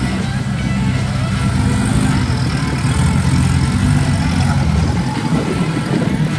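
Off-road vehicle engine running steadily, with music playing over it.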